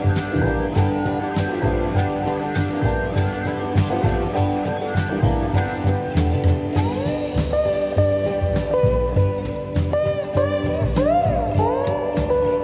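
Blues music with guitar over a steady drum beat; from about seven seconds in, a lead guitar plays bending, gliding notes.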